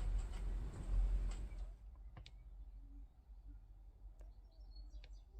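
Low room rumble and hiss that drops away about two seconds in, leaving a quiet room with a few isolated sharp clicks and faint, short high-pitched chirps near the end.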